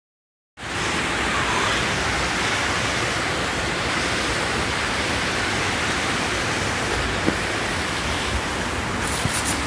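Steady rush of a creek's flowing water, starting abruptly about half a second in, with a few light clicks near the end.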